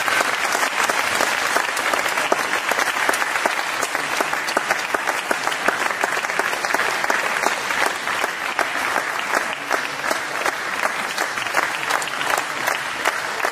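Spectators applauding: a steady, dense run of many hands clapping.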